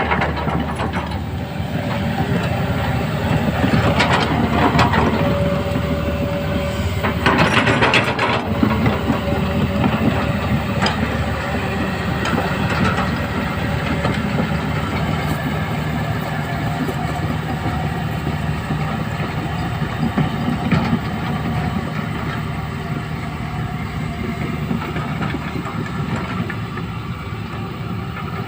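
Large hydraulic excavator at work, its diesel engine running steadily, with louder bursts of clatter about 4 and 8 seconds in.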